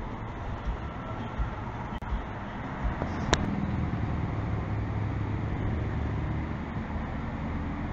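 Road traffic noise on a town street at night: a steady rush with a low engine hum that gets stronger in the second half, and a single sharp click a little over three seconds in.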